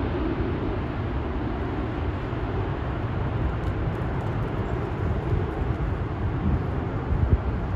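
Four-engined Airbus A380's jet engines rumbling steadily as the airliner climbs away after takeoff, a dense low roar without breaks.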